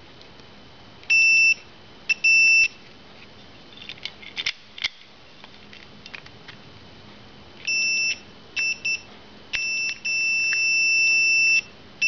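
Continuity beeper of a VC97 digital multimeter sounding on and off as the ignition switch key is wiggled. It gives two short beeps, a few faint clicks, a quick run of short beeps, then one long beep near the end. The broken contact across the switch terminals is an intermittent connection that the owner can't yet put down to the meter or to a faulty switch.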